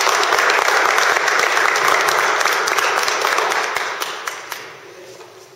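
A room of people applauding, holding steady for about three and a half seconds, then fading out.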